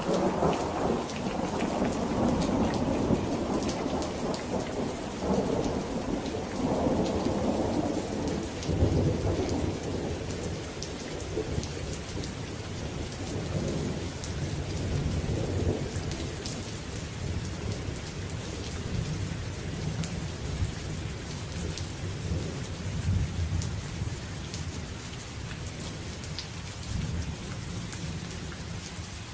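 Steady rain pattering, with a long roll of thunder. The thunder rumbles loudest over the first several seconds, then slowly dies away while the rain continues.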